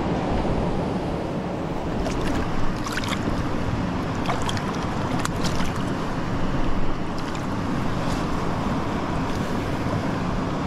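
River water rushing steadily, with a few short, sharp sounds between about two and seven seconds in.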